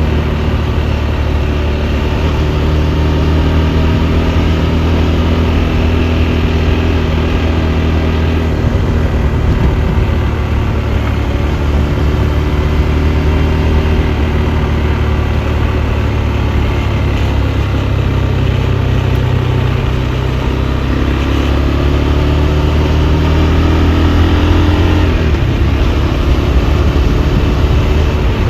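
KTM 390 Adventure's single-cylinder engine running while the motorcycle is ridden, mostly at a steady pace. About 8 seconds in the note changes, and in the last third it climbs gradually in pitch before dropping sharply about 25 seconds in, like a gear change.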